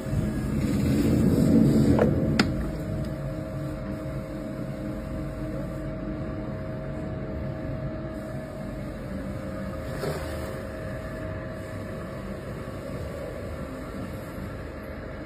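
Electric pottery wheel running with a steady low hum, louder for the first two seconds, with two sharp clicks about two seconds in.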